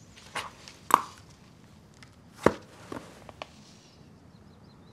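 A handful of short, sharp taps and rustles of paper being handled, as a sheaf of story pages is leafed through. The two loudest come about a second in and about two and a half seconds in.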